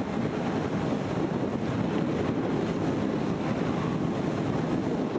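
Speedboat running fast over open water: a steady rush of engine and water noise, with wind buffeting the microphone.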